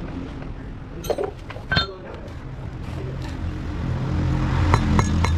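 Metal parts clinking with a short ring, two strikes a second or so in and a few sharper taps near the end, over a low engine hum that grows louder through the second half.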